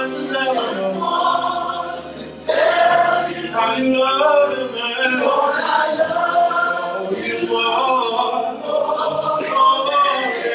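Church choir singing a gospel worship song over sustained instrumental accompaniment.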